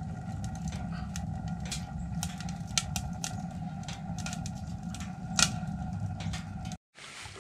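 Wood stove fire burning, a steady low rumble with scattered sharp crackles and pops.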